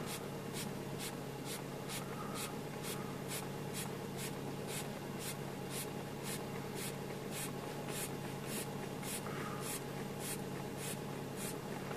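The hand pump of a Polonez Caro's relax-type seat is being worked in a steady rhythm, about two short pumping strokes a second, inflating the lumbar cushion. The car's warmed-up engine idles steadily underneath.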